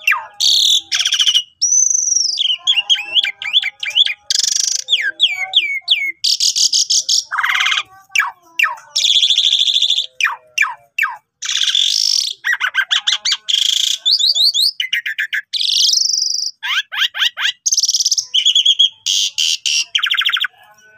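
Asian pied starling (jalak suren) singing without pause: a loud, varied medley of gliding whistles, rapid rattling trills and harsh chattering notes.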